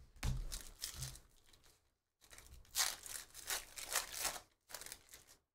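Foil wrapper of a Panini Phoenix football card pack crinkling and tearing as it is ripped open by hand, in several bursts, the longest from about two seconds in.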